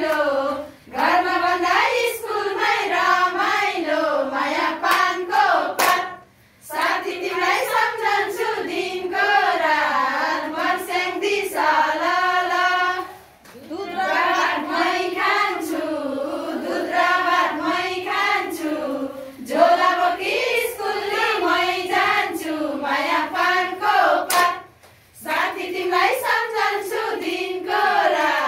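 A group of women singing a Nepali farewell (going-home) song together and clapping along. There are three short pauses between verses.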